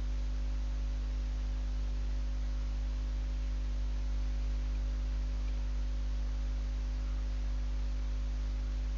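Steady low electrical mains hum with a few fainter overtones over light hiss, unchanging throughout.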